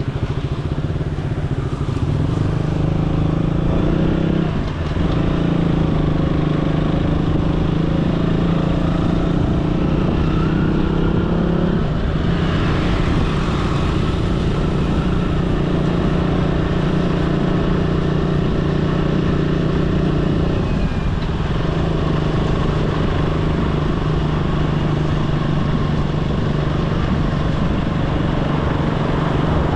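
A road vehicle's engine running steadily while under way, with road noise. Its pitch dips and shifts about 5, 12 and 21 seconds in, as it changes speed.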